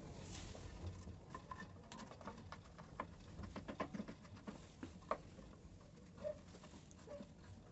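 Scattered light taps and clicks of small objects being handled, irregular and densest in the middle, with a few faint short tones near the end.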